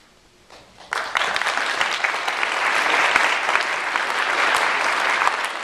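Audience applauding, starting about a second in and then continuing as a steady, dense clapping.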